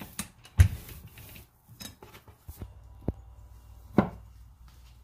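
Rolling pin rolling out pastry dough on a stone countertop, knocking against the counter several times; the loudest knocks come about half a second in and at about four seconds.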